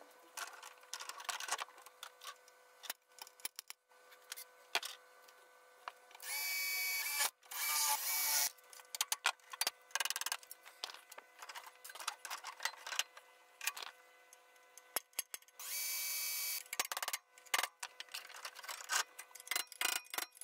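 A power drill runs in three short bursts of about a second each, two close together near the middle and one later, amid irregular metal knocks, taps and clicks of hand tools working on a steel shovel head.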